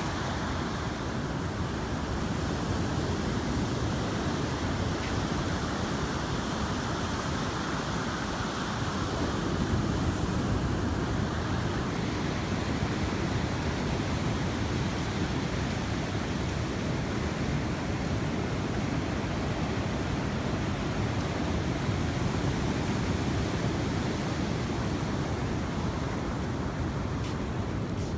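Steady noise of sea waves on the shore mixed with wind on the microphone, swelling slightly about ten seconds in.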